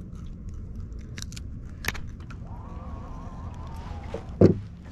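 Small metallic clicks and rattles of a fish lip-grip tool and jig as a small catfish is handled and unhooked. A faint steady hum runs through the middle, and there is one short thud near the end.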